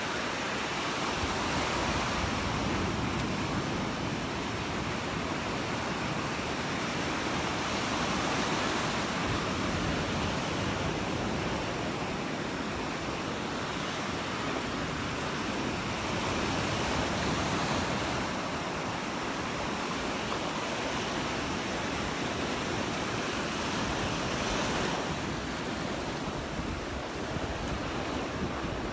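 Gulf of Mexico surf washing onto the beach, swelling every few seconds, with wind on the microphone.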